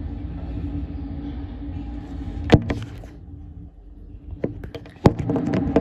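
CPKC freight train rolling past: a steady low rumble with a held tone, and sharp clicks, one about two and a half seconds in and a quick run of them near the end.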